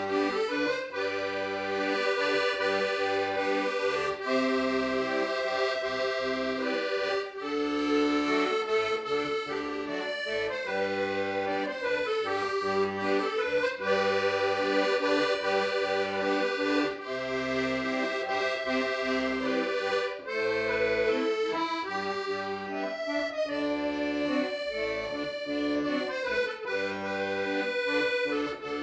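Instrumental music: an accordion plays the melody of a Korean pop song in sustained notes over a steady rhythmic bass accompaniment, with no singing.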